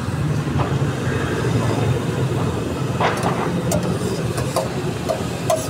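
A metal spatula clinking and scraping on a large flat tawa, with several sharp clinks in the second half, over a steady low rumble.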